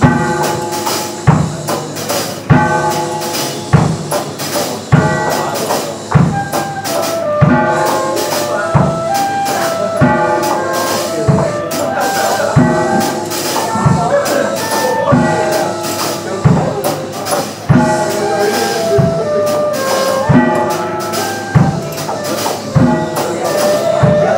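Live band music: a steady low beat about every second and a quarter under a melody of stepping held notes.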